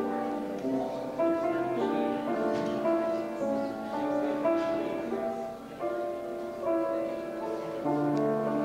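Slow instrumental music on a keyboard instrument, sustained notes and chords changing every second or so.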